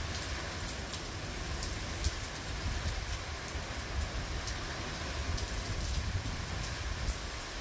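Steady rain falling, a dense even hiss dotted with sharp ticks of individual drops, over a steady low rumble.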